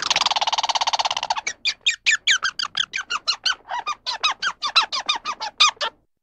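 Rapid squeaky animal calls: a buzzy trill for about a second, then a run of quick chirps, about five a second, that stop shortly before the end.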